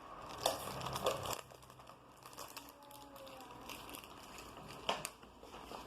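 Crinkling and tearing of a Pokémon card pack's wrapper as it is opened by hand, with sharper crackles about half a second in, about a second in, and again near the end.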